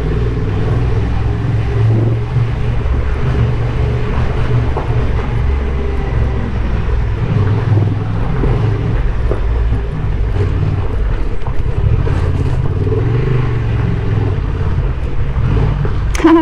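A Honda Transalp 750's parallel-twin engine runs steadily at low speed as the motorcycle rides through an unlined rock tunnel. The engine note swells briefly about thirteen seconds in, and there is one short sharp sound right at the end.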